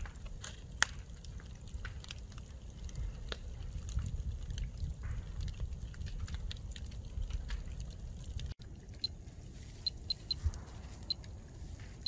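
Burning wood and debris crackling in the ruins of a brick house, with a low wind rumble on the microphone. After a cut about two thirds of the way in, short high beeps come singly and in quick groups of two or three, from a Terra Geiger counter clicking off radiation counts.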